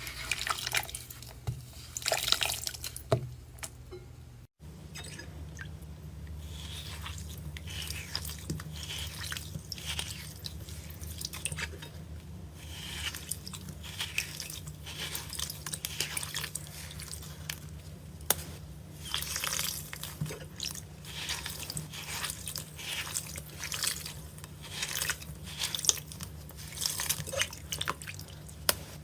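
A long run of short, irregular wet crackling and squishing sounds over a low steady hum, with an abrupt cut about four and a half seconds in.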